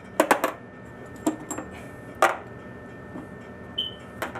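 Metal parts of a dielectric union clinking and knocking as it is handled and taken apart: a quick cluster of sharp clicks near the start, then single knocks about one and two seconds in. A brief high squeak comes near the end.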